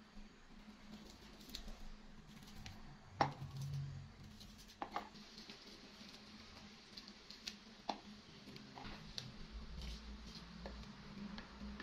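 Scattered light clicks and taps of food and utensils being handled, the loudest about three seconds in with a brief low thud after it, over a faint steady hum.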